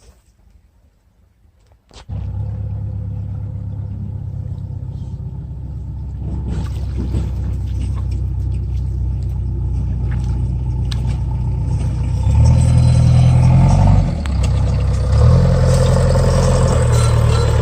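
An engine starts suddenly about two seconds in and runs steadily with a low hum, growing louder later on with a brief dip.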